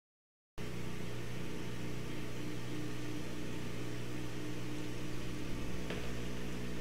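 Air-assist air pump humming steadily together with the diode laser engraver running a cut. The sound cuts in suddenly about half a second in, and there is a brief click near the end.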